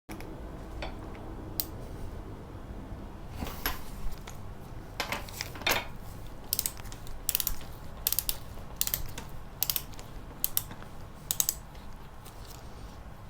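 Ratchet wrench clicking as a bolt on a motorcycle's front end is slackened off. A few separate clicks and knocks come first, then a steady run of ratchet strokes about every half second through the second half, over a low steady hum.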